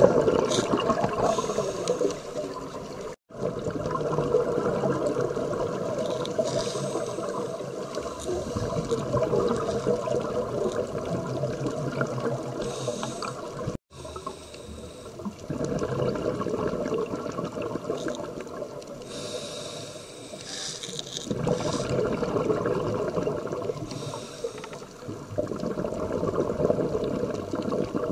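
Scuba diver breathing through a regulator underwater: a short hiss on each inhalation roughly every six seconds, each followed by several seconds of bubbling exhalation. The sound cuts out briefly twice, about three and fourteen seconds in.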